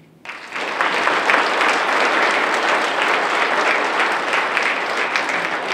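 Audience applauding: dense clapping from a large crowd that starts suddenly just after the start, holds steady, and begins to thin out near the end.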